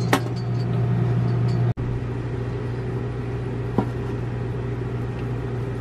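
Steady low mechanical hum, cutting out for an instant about two seconds in, with a soft knock of a chef's knife on a wooden cutting board near the middle.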